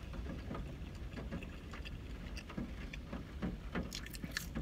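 Quiet chewing with soft wet mouth clicks. Near the end comes a bite into a French fry, heard as a few crisp clicks, all over a low steady rumble of the car cabin.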